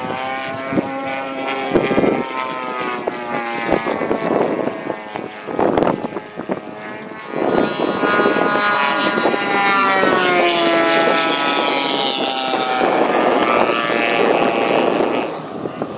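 Giant-scale radio-controled warbird model airplanes, their engines and propellers droning overhead, the pitch bending up and down as they fly past. The sound dips about six seconds in, then comes back louder and steadier.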